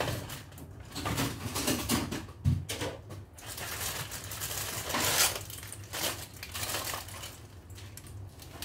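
Crinkling and rustling of plastic and foil in irregular spells, with scattered light clicks and knocks as kitchen things are handled, among them a clear plastic egg tray.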